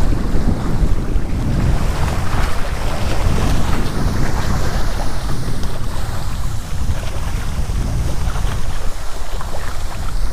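Strong wind buffeting the microphone with a continuous low rumble that gusts up and down, over choppy lake water splashing at the shore.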